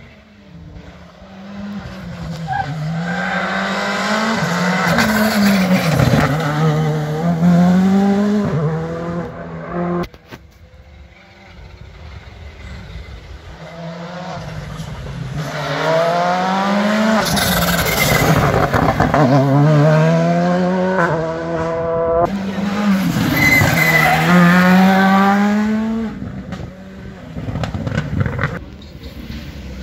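Rally car engine revving hard and shifting, its pitch repeatedly climbing and dropping with each gear change. It swells in two long spells with a brief lull around ten seconds in.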